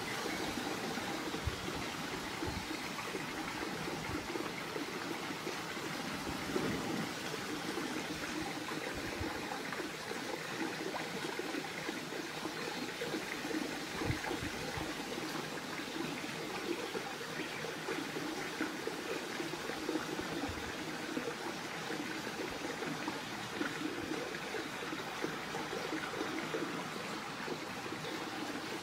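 Steady rushing outdoor background noise, like running water or wind in trees, with a few soft low bumps scattered through it.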